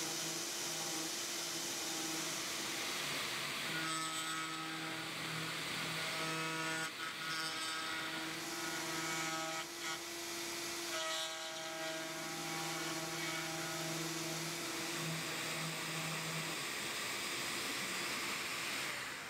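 CNC router spindle running steadily while a V-bit engraves a brass bar, with a machine hum whose tones come and go and change as the cutter moves across the work.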